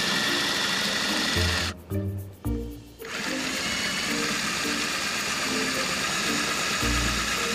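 Cordless drill running, its twist bit cutting through the van's sheet-metal roof with a steady whine; it stops about two seconds in and starts again a second later. Background music with a steady bass line plays underneath.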